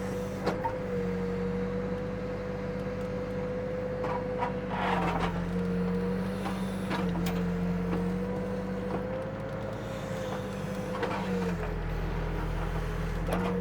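Backhoe's diesel engine running steadily at working speed. Its pitch dips briefly about five seconds in and again near the end as it takes load, with scattered clunks along the way.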